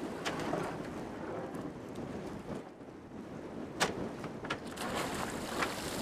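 Wind buffeting the microphone over sea noise, with several sharp knocks and splashes as crab pots and their rope go over the side of a small boat; the loudest knock comes about four seconds in.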